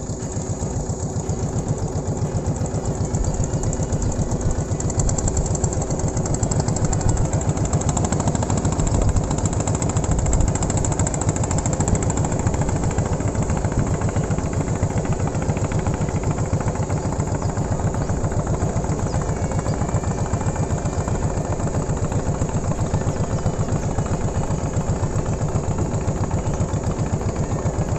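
Engine of a small wooden motorboat running steadily while under way, with a fast, even chugging.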